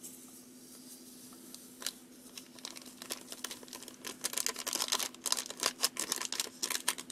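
Foil candy-powder packet crinkling as fingers squeeze and shake the powder out of it: scattered crackles at first, growing into a dense run of quick crinkles from about four seconds in.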